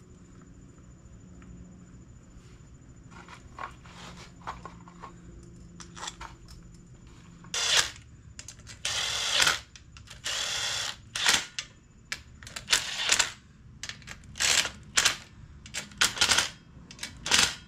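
Cordless driver running in about ten short bursts, driving in the screws that hold a rebuilt carburetor rack in place. Before the first burst, about seven seconds in, there are only faint clicks of the screws being started by hand.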